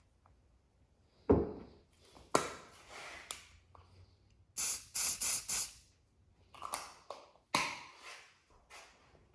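Four quick pump sprays of super glue accelerator about halfway through, misting onto fresh cyanoacrylate glue so it cures at once. A few sharp knocks come before and after.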